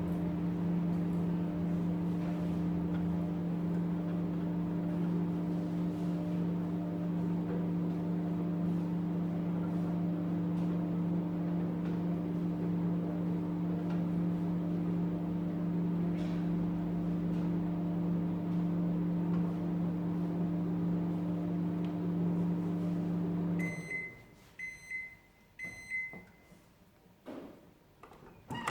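A Recco 1200 W microwave oven runs with a steady hum while heating a cup of water. It cuts off suddenly about 24 seconds in, and three short high beeps follow about a second apart, signalling the end of the cooking cycle. A couple of faint clicks come near the end.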